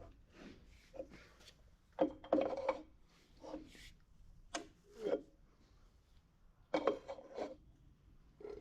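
Irregular scrapes, rubs and clinks of hand tools and metal engine parts being worked by hand, a handful of short knocks and scrapes with quieter handling between.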